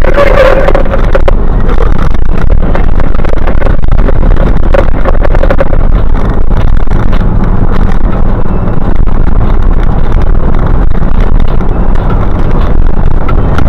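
Fire engine driving on a rough road, heard from inside the cab: a loud, steady engine drone and road noise, with frequent brief knocks and rattles.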